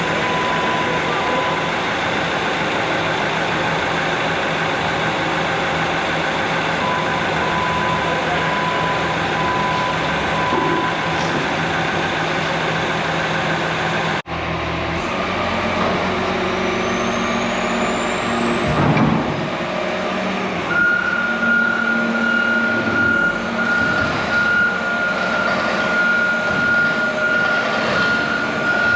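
Heavy diesel machinery running steadily, with a sudden cut about halfway through to a different stretch of running; in the later part a steady high-pitched tone sounds over the engine.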